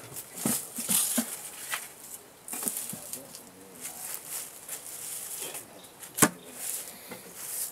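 Irregular knocks, clicks and scrapes from wooden beehive frames and boxes being handled, with one sharp knock about six seconds in.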